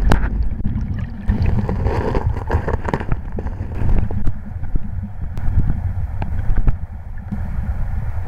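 Flowing river water heard with the microphone underwater: a deep, steady rumble of the current with scattered clicks and knocks.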